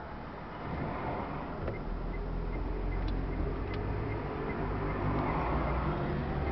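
City bus engine running and road noise heard from inside the moving bus, the low engine hum growing louder about two seconds in.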